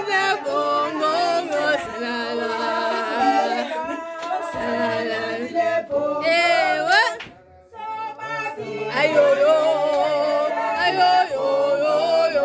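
Several voices singing together in a cappella style, holding and sliding between notes, with a sharply rising vocal glide about halfway through followed by a brief pause.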